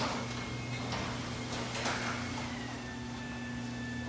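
Chamberlain B750C belt-drive DC garage door opener lowering a sectional door: a steady motor hum with a few sharp clicks from the door panels and rollers in their tracks.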